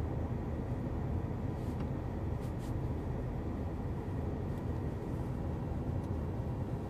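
Pontiac Grand Prix GXP's 5.3-litre V8 running, a steady low rumble heard from inside the cabin, with a few faint clicks about two and a half and four and a half seconds in.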